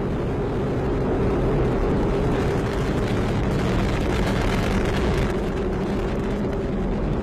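Atlas V rocket's RD-180 first-stage engine firing in the climb just after liftoff: a steady, deep noise with a constant hum running through it.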